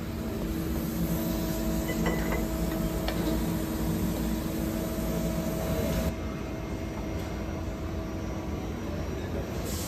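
Steady machine-shop machinery hum, a low drone with a few steady tones and some faint clicks, changing abruptly about six seconds in.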